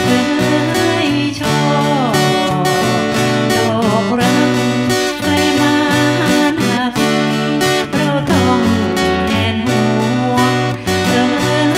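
Two acoustic guitars playing a Thai luk thung song, one strumming chords and the other picking a melody over them.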